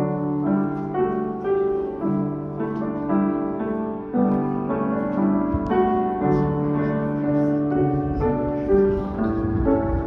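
Piano playing a melody over chords, several notes sounding together and changing about twice a second.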